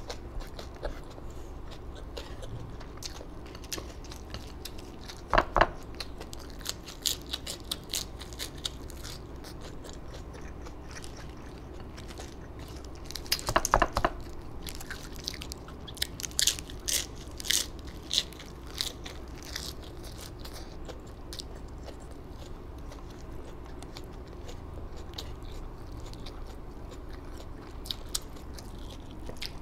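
A person eating close to the microphone: chewing and crunching crisp food, with loud crunchy bites about five and a half seconds in and again around fourteen seconds in, followed by a run of crisp, clicky chewing.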